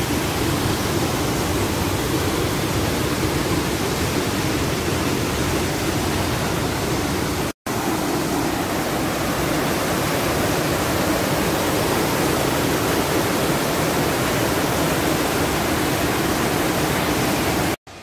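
Narada Falls, a large mountain waterfall, rushing in a loud steady wash of whitewater over rock. The sound breaks off for an instant about halfway through and again just before the end.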